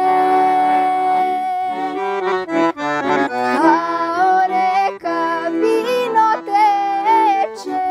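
Piano accordion playing a slow traditional folk tune: held chords under an ornamented melody line.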